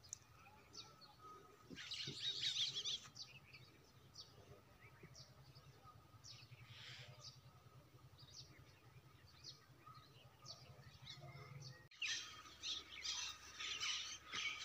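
Outdoor birds chirping: many short, high calls, with a dense burst of chirping about two seconds in and busier chirping again from about twelve seconds on. A faint steady hum runs underneath until it stops suddenly about twelve seconds in.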